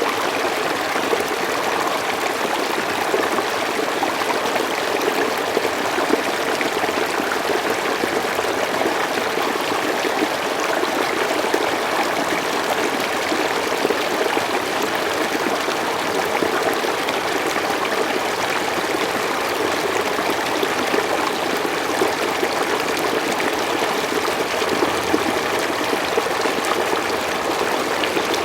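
Forest stream running over stones: a steady rush of flowing water with fine trickling detail, even throughout.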